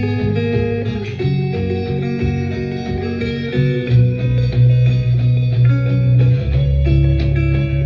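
Guitar-led music with a heavy bass line, played on a JBL Boombox 2 portable Bluetooth speaker as a sound test.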